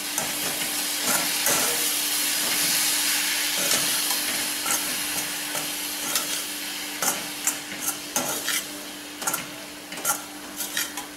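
Karupatti (palm jaggery) syrup sizzling in a hot stainless steel kadai while soaked poha filling is stirred with a steel ladle. The hiss fades gradually, and the ladle's scrapes and taps against the pan stand out more toward the end.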